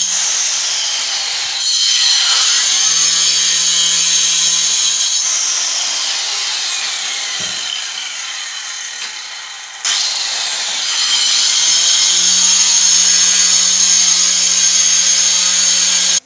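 Handheld electric cutter with a cutting disc running and slicing through a ceramic floor tile: a loud, steady whine with gritty cutting noise. It sags gradually, jumps back up about ten seconds in, and cuts off suddenly at the end.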